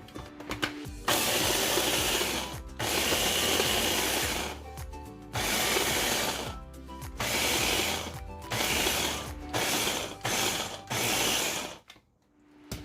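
Blender motor pulsed in about seven bursts of one to two seconds, grinding old-fashioned rolled oats into a coarse powder, the first two bursts the longest.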